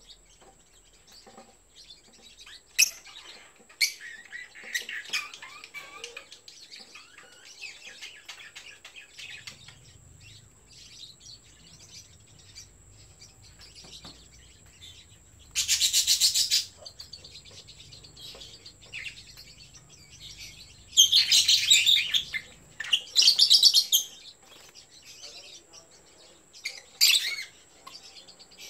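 Yellow lovebirds calling: two short, sharp chirps about three seconds in, then several shrill, harsh screeches of about a second each through the middle and near the end.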